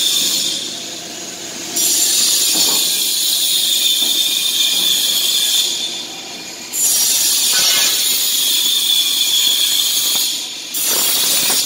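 Grinder bevelling the edges of metal barge connection blocks, a loud high-pitched grinding hiss that fades out three times and starts again abruptly each time.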